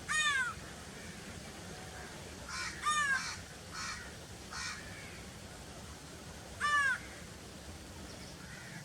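Crows cawing: three loud, short, harsh caws, each dipping in pitch, at the start, around three seconds in and near seven seconds, with a few fainter caws in between.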